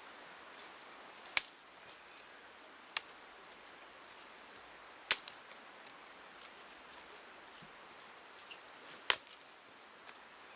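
Dead wood being snapped for firewood: four sharp, separate cracks over a faint background hiss, the last a quick double crack near the end.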